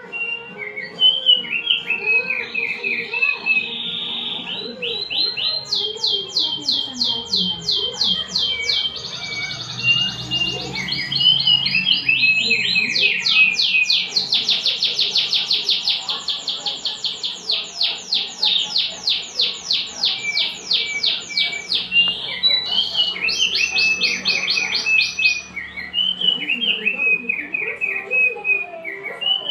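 Opior, a white-eye songbird, singing: short high chirping phrases alternating with long, fast trills of rapidly repeated notes, the longest running for several seconds through the middle.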